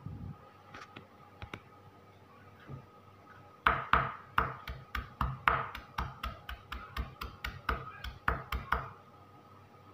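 Chef's knife chopping on a wooden cutting board: a few single taps, then from about four seconds in a fast run of chops, about four to five a second, lasting some five seconds, as food is minced very fine.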